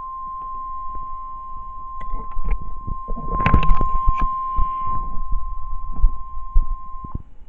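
NOAA Weather Radio warning alarm tone (1050 Hz) from a weather radio receiver: one long, steady, high-pitched beep that stops shortly before the end. Underneath are scattered bumps and rustling, loudest about three and a half to four seconds in.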